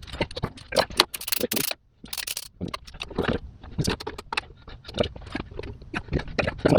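Irregular clicks, taps and scrapes of hand tools against metal parts and bolts while an oil pan is fitted under an engine. There is a brief pause about two seconds in.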